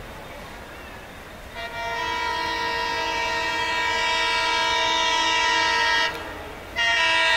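WDM3D diesel locomotive's air horn sounding one long blast of about four seconds, then a second blast starting shortly before the end.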